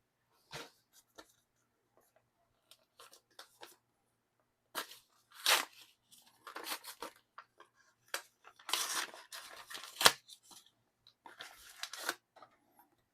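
Small photo-card package being opened and handled: irregular short tearing and rustling rasps with scattered clicks, the sharpest a brief snap about ten seconds in.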